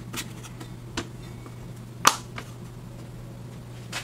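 A few light clacks of thin laser-cut wooden pieces being picked up and set down on a wooden tabletop, the sharpest one about two seconds in, over a steady low hum.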